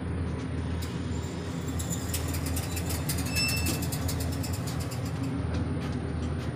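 Elevator doors sliding shut with a run of clicks and rattles from about two to four seconds in, and a brief high-pitched tone about three and a half seconds in. A steady low hum from the elevator machinery runs underneath.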